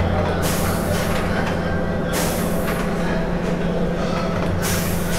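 A steady low mechanical hum with loud bursts of hiss laid over it: one starts about half a second in and lasts nearly two seconds, and another starts near the end.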